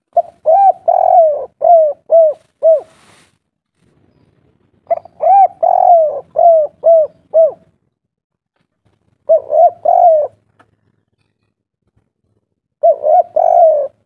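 Spotted dove cooing its 'kuk 3' song. There are four phrases of short, arching coos: the first two are runs of six or seven notes, and the two near the end are shorter, about three notes each.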